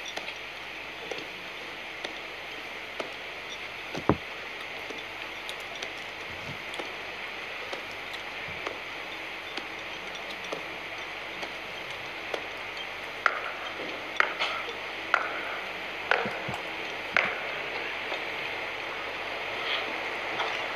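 A steady outdoor hiss of open-air ceremony ambience, with a lone sharp knock early and a run of five sharp stamps about a second apart past the middle, from the flag-raising team's boots in a slow drill step.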